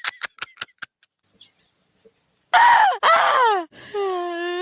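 A person in a fit of hysterical laughter: a quick run of short wheezing pulses, a silent breathless pause, then two loud shrieks falling in pitch and a long held high squeal.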